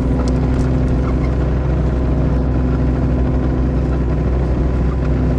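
Kubota KX018-4 mini excavator's three-cylinder diesel engine running at a steady speed, a constant even drone.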